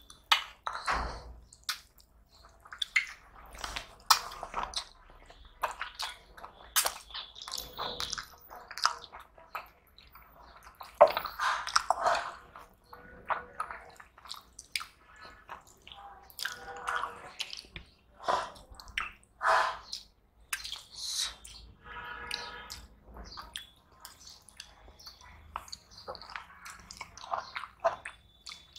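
Close-up eating sounds of two people eating rice and curry with their fingers: wet chewing, lip smacks and sucking, with the squish of fingers mixing rice and curry. They come as many short, irregular clicks and smacks.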